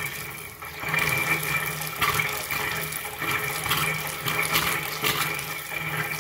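Bathroom sink faucet running a thin stream into the basin, the flow uneven and spurting, a sign of air still in the water lines after the main supply was turned back on.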